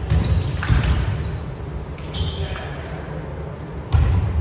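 Indoor volleyball play on a gym court: the ball thumps sharply off hands and floor a few times, about a second in and again near the end, with short high squeaks of shoes on the court and players' voices in between.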